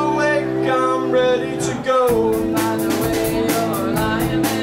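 Live indie rock band playing: bass and guitar hold a chord, then change chord about two seconds in, with drums and cymbals growing busier after the change. A man sings over it.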